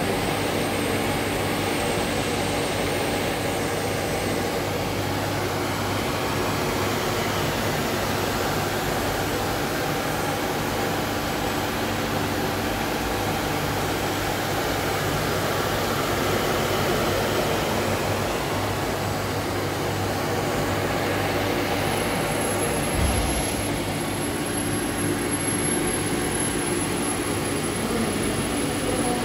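DECKEL FP 4 NC CNC tool milling machine running: a steady drone of electric motors and fans, with a single dull bump about three-quarters of the way through and a faint high whistle starting shortly before it.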